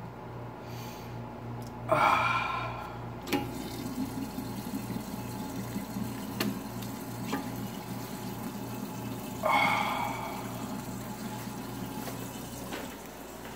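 Water running steadily, starting about three seconds in, over a low steady hum, with two short vocal sounds about two and nine and a half seconds in.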